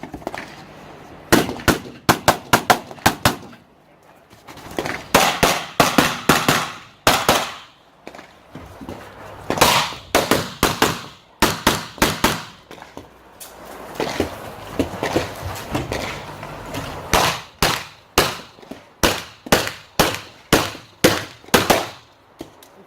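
Pistol shots fired in fast strings from an Open-division STI 2011 race pistol, several in quick succession, then a short pause and another string. It is the sound of an IPSC stage being shot.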